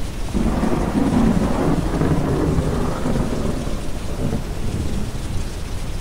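Rolling thunder over steady rain and deep brown noise. The rumble swells in about half a second in, is loudest over the next two seconds, then fades out near the end.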